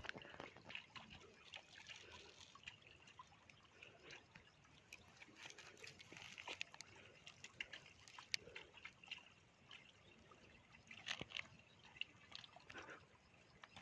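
Faint water sounds: small splashes, drips and trickles with scattered light clicks, a few louder ones about eleven seconds in.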